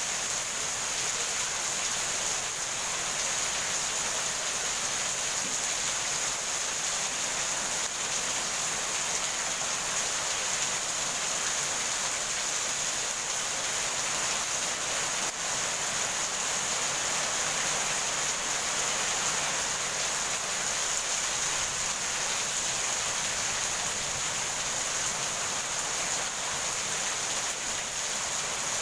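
Heavy rain falling steadily, an even hiss with no rise or break.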